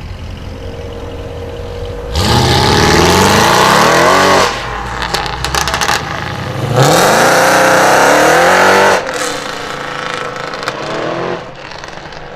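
Modified car engine idling, then revved hard twice, each rev climbing quickly in pitch for about two seconds and then cutting off. A short run of crackles and pops follows the first rev as the throttle closes.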